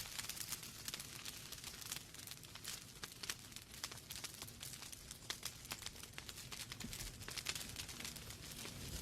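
Wood fire burning in a fireplace: logs crackling with many quick, irregular pops and snaps over a soft hiss and low rumble of the flames.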